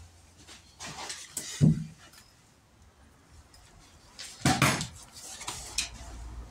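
Knocks and clatter of objects being handled, with a sharp thud a little under two seconds in and a longer, louder knock-and-rattle about four and a half seconds in.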